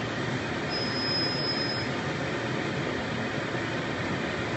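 CNC plasma cutting and drilling machine running with a steady, even mechanical noise, and a thin high whine for about a second near the start.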